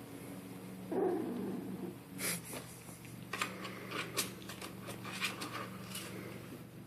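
A litter of young puppies stirring: a short whimper about a second in, then scattered small snuffles and scratchy clicks as they move about. A steady low hum runs underneath.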